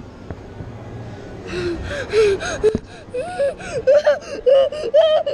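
A child straining as he climbs: breathy gasps and short whimpering vocal sounds that rise and fall, starting about a second and a half in, with a single knock partway through.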